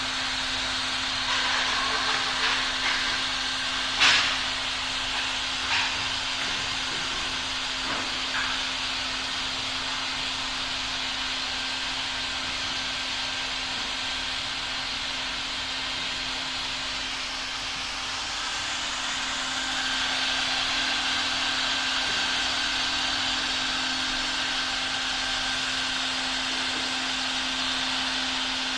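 Hot-air keder welding machine running on PVC tarpaulin: a steady blower hiss over a constant motor hum, a little louder from about twenty seconds in. A few clicks and knocks in the first eight seconds, the sharpest about four seconds in.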